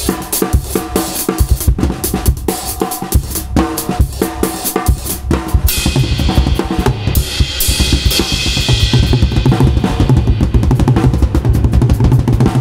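Acoustic drum kit with Meinl cymbals played freely: separate snare, tom and bass drum strokes, then a cymbal crash about halfway through opens a denser, faster run of drum strokes with the cymbals ringing over it.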